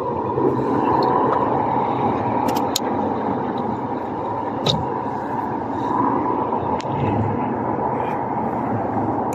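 Steady vehicle noise from traffic or engines running nearby, with a few light clicks.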